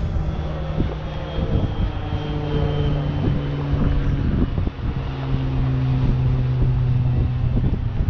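A propeller aircraft's engine drones steadily overhead. Its low hum drops in pitch in steps across the seconds.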